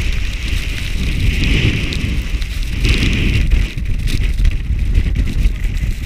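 Gusting snowstorm wind buffeting a GoPro Hero4 Silver's microphone: a loud, uneven low rumble, with a higher hiss swelling twice.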